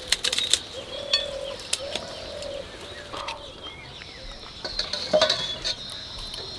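Metal spoons clinking and scraping against plates while eating, with a cluster of clinks at the start and more about five seconds in. Birds chirp in the background.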